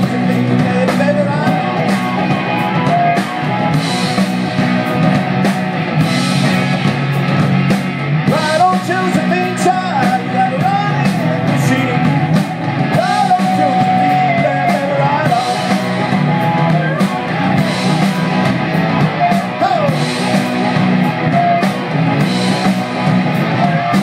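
Live rock-and-roll band playing through a PA: electric guitars and drum kit, with a harmonica played into cupped hands over the top.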